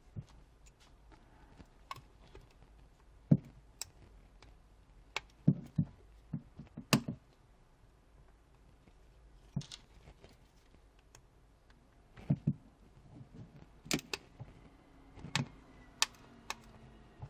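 Scattered small clicks and taps of a tool working on a Samsung Galaxy S4's plastic frame as it is pried open, coming at irregular intervals with a few sharper snaps.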